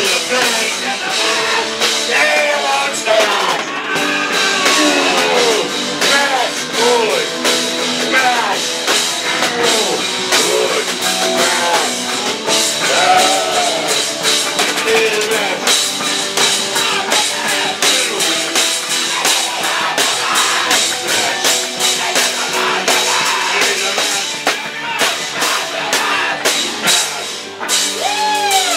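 Live rock band playing loud: a drum kit with cymbals keeps a steady beat under a melody line that slides up and down in pitch.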